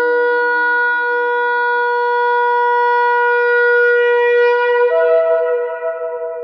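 Shofar blown in one long, steady blast that steps up in pitch about five seconds in, then starts to fade. It is sounded as a call of judgment and war.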